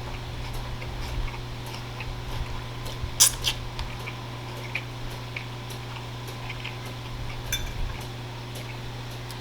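A person chewing food close to the microphone, with small wet mouth clicks and a sharper click or clink about three seconds in. A steady low hum sits underneath.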